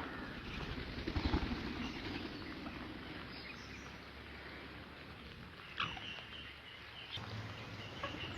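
A ringneck parrot gives a short call about six seconds in, a quick falling note and then a held whistle lasting about a second, over a steady background hiss. A few low thumps come about a second in.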